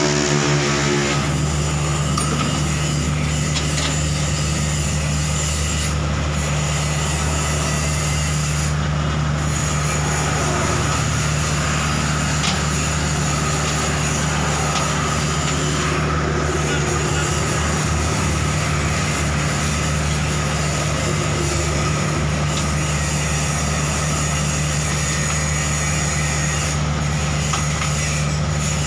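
Hitachi Zaxis 48U mini excavator's diesel engine running at a steady, unchanging pitch.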